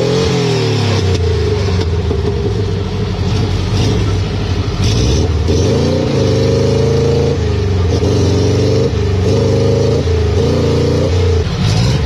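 An off-road car's engine revving hard and unevenly, its pitch rising and falling several times, as the vehicle struggles in deep mud.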